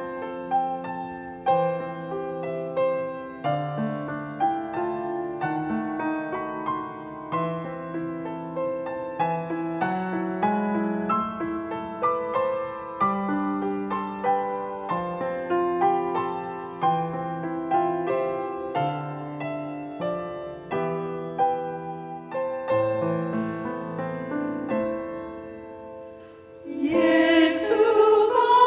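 Solo piano playing a slow, gentle introduction of melody with chords. About two seconds before the end, a women's vocal ensemble comes in singing, louder than the piano.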